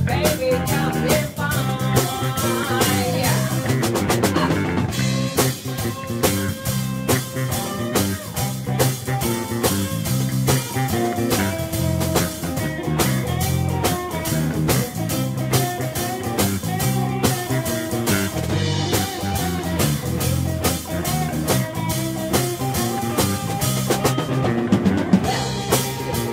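Live band playing a 1960s-style blues-rock number, with drum kit and electric guitar to the fore.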